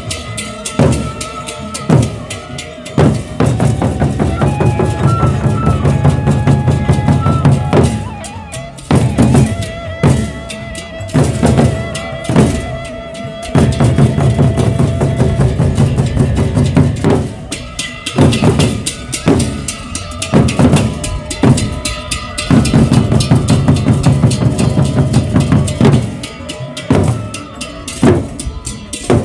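A gendang beleq ensemble playing: large Sasak barrel drums beaten in fast, dense strokes, with cymbals and steady ringing gong tones over them.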